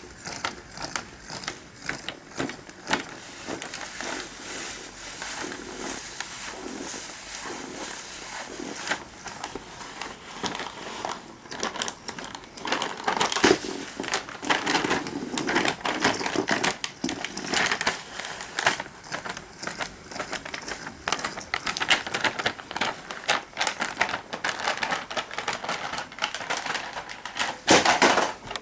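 A self-moving 'Cat in the Bag' toy crinkling and rustling its bag as it travels across a wooden floor. The crackles and clicks come in an irregular run and grow louder and busier from about halfway.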